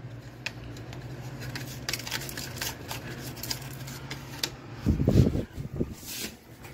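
Small scattered plastic clicks and scrapes as a wall outlet plate is handled and fitted to its wall box, over a low steady hum. About five seconds in comes a louder muffled rumble lasting about a second.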